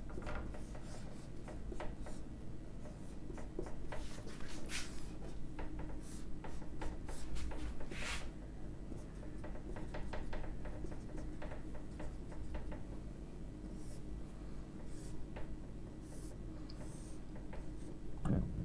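Whiteboard marker drawing on a whiteboard: many short, irregular strokes as lines and symbols are drawn, over a faint steady low hum.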